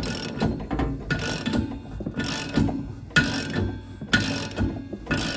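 Ratchet wrench with a 19 mm socket clicking in repeated strokes about once a second, unscrewing the bleed valve on top of an espresso machine's steam boiler.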